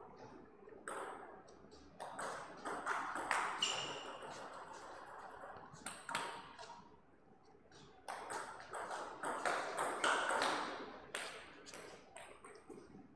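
Table tennis ball being hit by rubber paddles and bouncing on the table in a rally: a run of quick, sharp pocks in two clusters, with a short ring after each.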